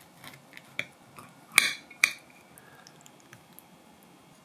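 Knife and fork tapping and clinking against a ceramic plate while cutting food: a few light ticks, then two sharper clinks about a second and a half and two seconds in.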